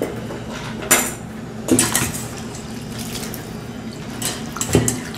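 Wire-mesh strainer spoon clinking against a steel bowl while stirring cooked fusilli pasta in rinse water, with water sloshing. Sharp clinks come about a second in, near two seconds, and twice around four and a half seconds.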